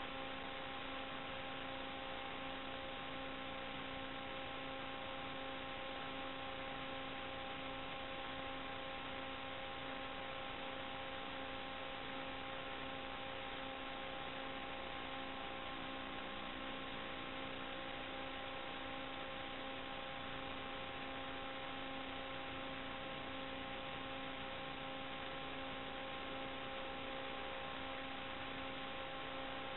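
Steady static hiss with a constant electrical hum, picked up on the audio channel of an analog FPV video link and recorded by the DVR. The hum's pitch never changes, so it does not follow the quadcopter's motors or throttle.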